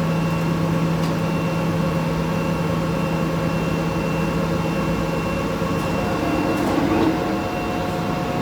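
Industrial machine running with a steady hum and a faint high whine. About six seconds in, the low hum fades and a new, higher steady tone starts, as if the machine changes its operating state.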